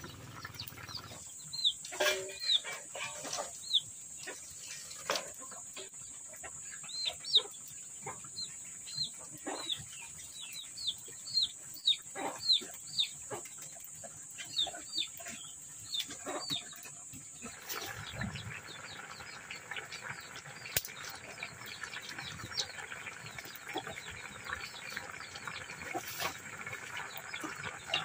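Small birds chirping in quick, repeated short downward calls, with scattered sharp clicks and a thin steady high whine. About two-thirds of the way through, the chirps fade and a steady hiss takes over.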